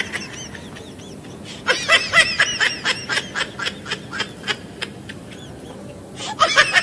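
High-pitched snickering laughter in quick repeated syllables, in one run about two seconds in and another near the end.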